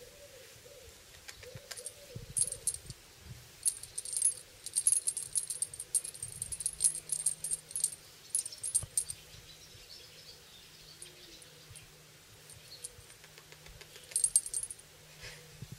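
High metallic jingling, shaken in short bursts through the first half and again briefly near the end.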